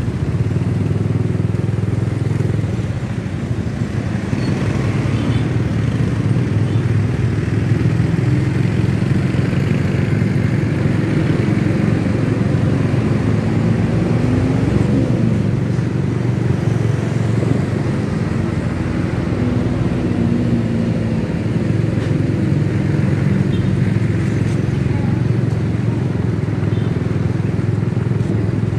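Motorcycle engine running with a steady rumble of road and wind noise while riding through city traffic; the engine note rises and falls briefly a couple of times around the middle.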